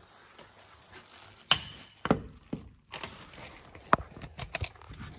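Hotel room door with a keycard lock being unlocked and opened: a series of sharp clicks and clunks from the lock, handle and latch as the door swings open.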